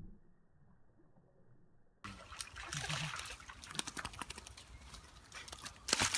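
Water splashing and sloshing as a dog moves through a pond, faint and muffled at first, then louder and crackly with many small splashes, and a sharp knock near the end.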